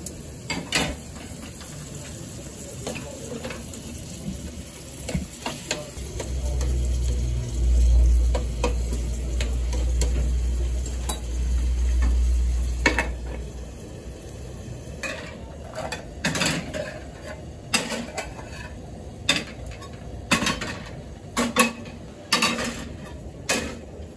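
Aluminium pans, lids and utensils clinking and knocking at a gas stove, over light sizzling of chopped tomatoes cooking in a small pan. The knocks come thickest in the second half, and a low rumble runs for several seconds in the middle.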